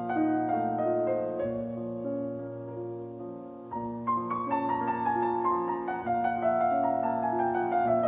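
Solo piano music of slow, sustained notes. The notes fade off, and a new phrase begins after nearly four seconds.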